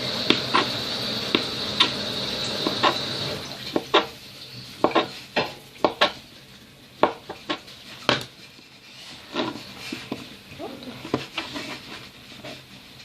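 Irregular clinks and knocks of kitchen utensils against dishes and a bowl, about one a second, over a steady hiss that stops about three seconds in.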